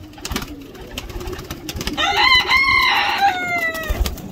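A rooster crowing once, starting about two seconds in: a cock-a-doodle-doo of about two seconds that rises at the start and ends on a long falling note. A few light knocks and rustles come before it.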